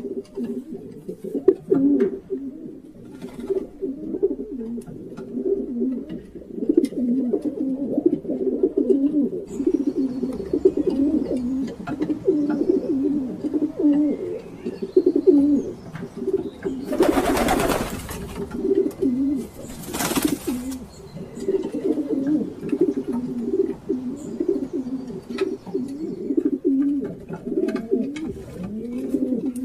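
Several pigeons cooing continuously in low, overlapping coos. Two brief rushing noises come about 17 and 20 seconds in.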